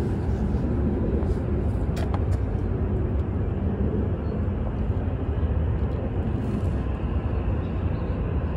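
Steady low rumbling background noise outdoors, even in level throughout, with a faint click about two seconds in.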